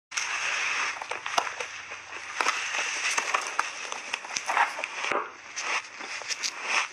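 Soft refrozen shaved ice bitten off in big bites and chewed: a dense crunching hiss with many sharp crackles.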